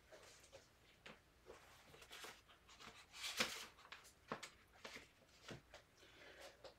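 Faint rustling and soft handling of paper as the pages of a prayer book are turned, in short scattered strokes, the loudest about halfway through.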